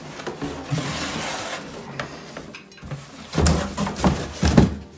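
Power Macintosh desktop computer being lifted out of a cardboard box. The metal-and-plastic case and the cardboard scrape and rub against each other, and two heavier bumps follow in the last second and a half.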